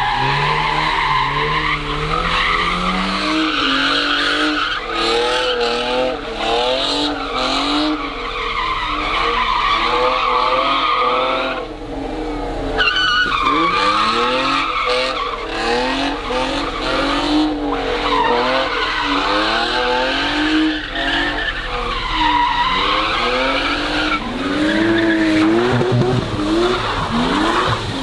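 Rear-wheel-drive cars doing donuts on wet asphalt: engines revved hard up and down about once a second, with skidding tyre noise.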